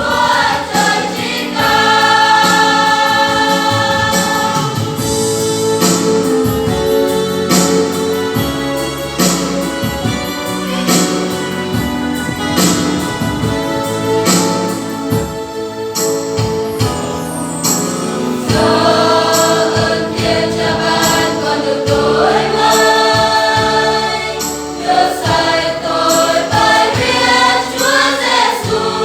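A choir sings a Protestant hymn of praise to the Lamb over instrumental backing with a steady beat.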